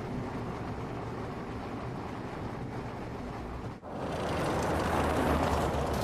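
A vehicle's engine and road noise: a steady low rumble, then after a sudden break about two-thirds in, a louder rushing noise that builds.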